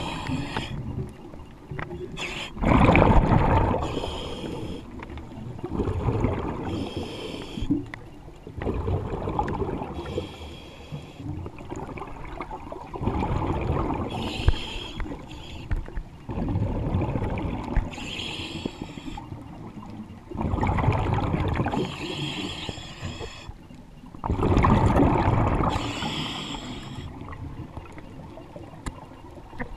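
Underwater breathing of a diver on compressor-fed air. Each exhale sends out a loud rush of bubbles and each inhale brings a softer regulator hiss, in a steady cycle about every four seconds.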